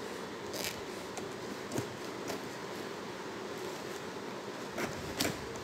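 Scissors cutting through packing tape along the seam of a cardboard box: a few short, sharp snips and scrapes over a steady background hiss.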